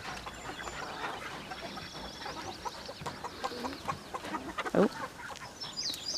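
Backyard chickens clucking quietly, with scattered short calls, and a run of quick high chirps near the end.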